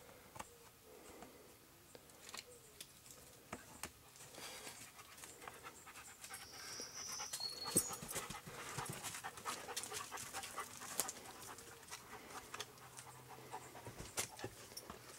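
A dog panting, with its breathing swelling in the middle stretch, over scattered small clicks and scuffs.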